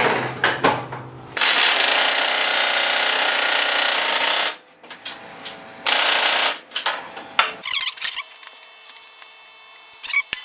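Air impact wrench hammering on a seized bolt in a long burst of about three seconds, then a second short burst; the bolt is not yet coming loose.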